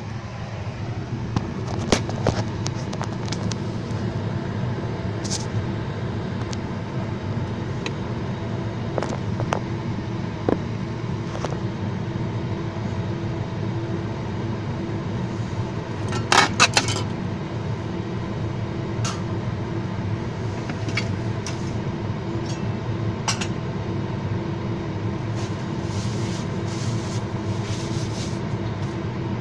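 A steady droning hum from the gas stove starts just as the burner is lit and runs on while an empty wok heats. Scattered light metal clicks and a brief clatter about sixteen seconds in come from the wok being handled.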